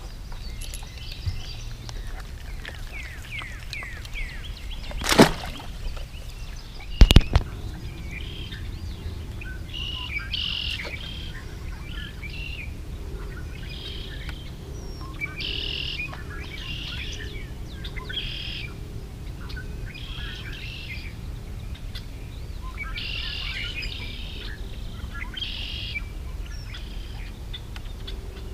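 Songbirds chirping and calling in short repeated phrases, with two loud sharp knocks about five and seven seconds in.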